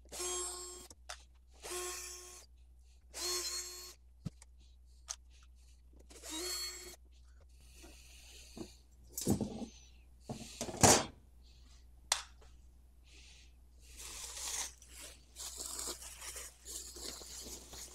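Cordless drill-driver whirring in four short bursts as it backs out the screws of an amplifier head's rear panel. Then come scrapes and two knocks, the second one sharp and the loudest, as the metal panel is lifted off, followed by steady rustling and crinkling of plastic packing being pulled out of the chassis.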